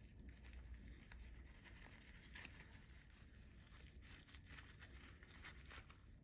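Faint crinkling and rustling of a plastic pouch squeezed in rubber-gloved hands as powder is emptied from it, with scattered light ticks, over a low steady room hum.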